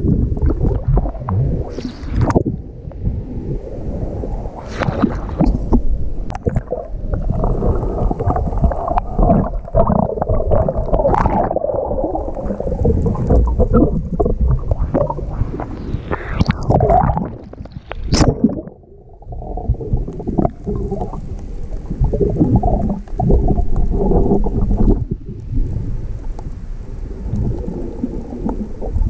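Rough sea water churning and gurgling around a microphone at or under the surface, a muffled, uneven rumble with a brief lull about two-thirds of the way through.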